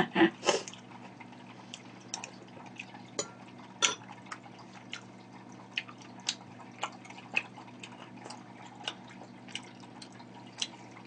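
Close-miked eating sounds: a person chewing with the mouth closed, making scattered wet mouth clicks and smacks about once or twice a second. A low steady hum runs underneath.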